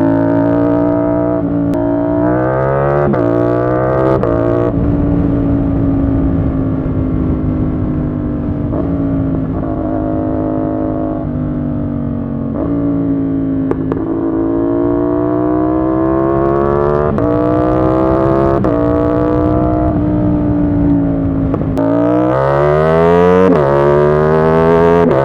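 CFMOTO 450SR S parallel-twin engine under way: it pulls up through several quick upshifts in the first few seconds, then holds a steady cruise with the pitch slowly drifting up and down. Near the end it accelerates up through the gears again.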